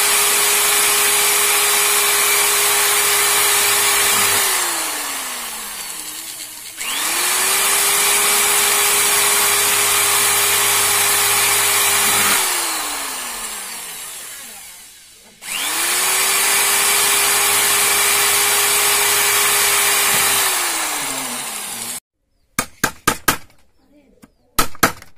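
Electric hand drill boring holes through a switchboard sheet. It runs three times for about four to five seconds each, and each run ends in a falling whine as the motor coasts down. Near the end come a few sharp taps of a hammer on a punch.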